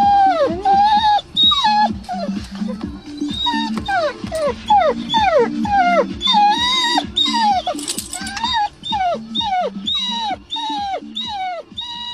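Greyhound whining in the cabin of a car: a string of high, short cries, each falling in pitch, about two a second, over a steady low hum.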